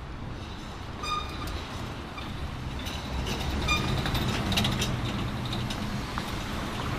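Traffic rumbling past on an elevated viaduct overhead, growing louder about three seconds in, with a couple of short high squeaks and some clattering.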